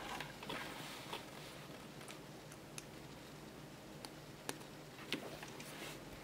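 Light clicks and taps of hands handling a PC case fan and plugging in its connector, about half a dozen spread out, over a faint steady low hum.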